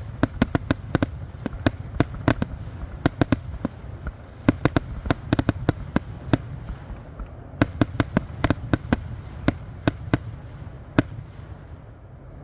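Fireworks going off: sharp cracks in irregular clusters of several a second, separated by short gaps, over a low rumble. The last crack comes about eleven seconds in.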